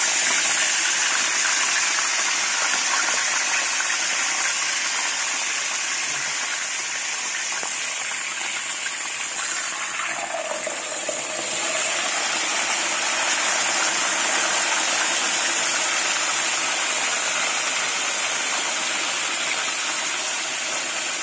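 Whole tilapia frying in hot cooking oil in a pan: a steady, dense sizzle.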